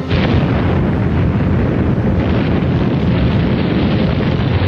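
A large explosion: a sudden loud blast that carries on as a steady, dense rumble of noise.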